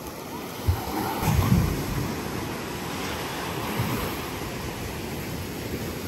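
Sea surf washing onto a sandy beach as a steady rushing noise, with a few low wind bumps on the microphone about a second in.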